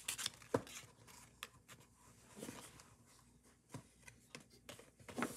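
Paper and card being handled: scattered soft rustles and light ticks as paper pieces are pushed and slid into place by hand.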